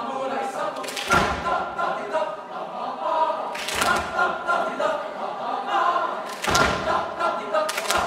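Boys' choir singing a Japanese folk-song arrangement, with several loud thumps cutting through the singing: one about a second in, one near four seconds, and two close together near the end.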